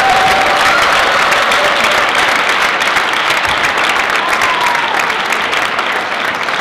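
Spectators in an arena applauding steadily, the clapping slowly dying down.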